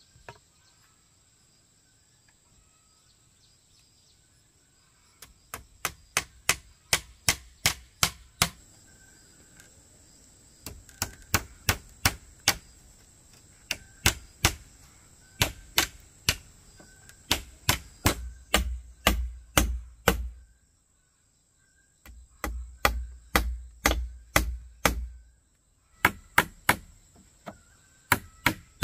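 Hammer driving nails into wooden slats: runs of sharp blows, about three a second, with short pauses between runs. Faint chirping is heard before the hammering starts about five seconds in.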